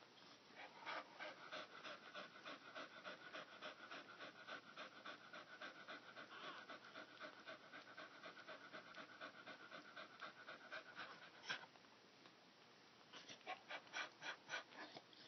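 Mother dog in labour panting quickly, about four to five breaths a second, faint and close. The panting pauses briefly about eleven seconds in and then starts again. A thin steady high tone runs under the first long stretch of panting.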